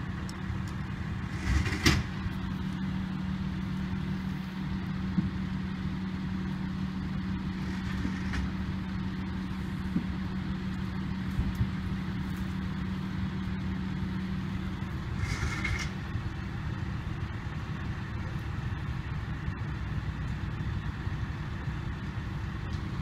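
A steady low engine hum, like a large vehicle idling, with a constant drone throughout. A few brief louder noises break in, the loudest about two seconds in.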